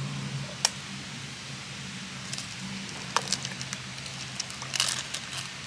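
Eggs being cracked on the rim of a mixing bowl of batter: a sharp tap about three seconds in followed by brief shell crackling, then a second tight cluster of cracks near the end as the next egg breaks. A steady low hum runs underneath.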